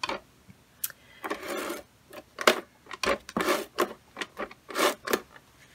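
Tape runner drawn in short strokes across cardstock, laying down adhesive: a few short noisy strokes with sharp clicks between them.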